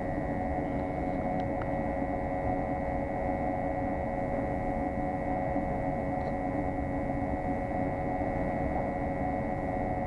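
Steady mechanical drone with a few steady humming tones and a thin, high whine above them, from equipment running while a gas-fired commercial water heater burns.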